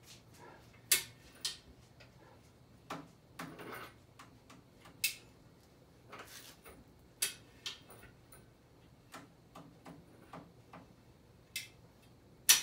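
Irregular sharp clicks and metal clinks from the hook, chain and strap hardware rigging a hanging engine block as they are handled, with fainter ticks between the louder ones over a faint steady hum.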